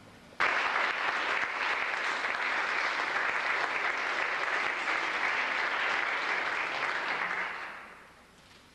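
Audience applauding, starting suddenly about half a second in and fading away near the end.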